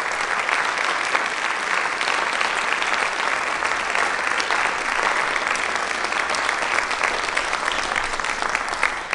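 Audience applauding: dense, steady clapping from a concert hall crowd.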